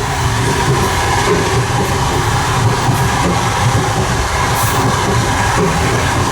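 Passenger train running at speed, heard from the vestibule of a passenger coach: a steady loud rumble of wheels on rail with a rattle of the carriage.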